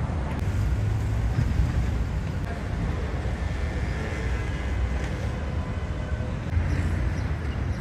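Steady rumble of street traffic, city street ambience.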